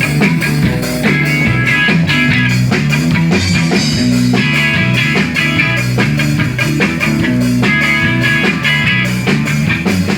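Rock band playing an instrumental passage with guitar and drum kit, with no vocals.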